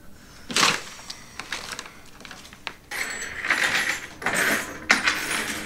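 Desk-top handling: a sheet of paper rustling in short bursts, with a few light metallic clinks of small objects being moved.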